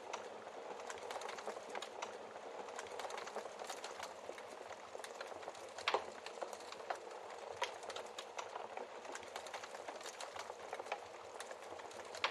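Wood fire crackling in a fireplace: a steady hiss with many irregular small pops and snaps, and one louder pop about six seconds in.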